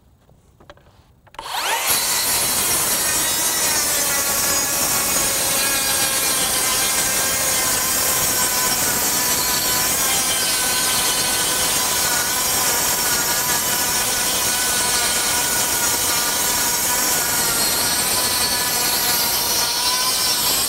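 Makita 40V XGT brushless rear-handle 7-1/4-inch circular saw ripping a long wooden board lengthwise under steady load. The cut starts about a second and a half in, holds at one level and stops sharply at the end.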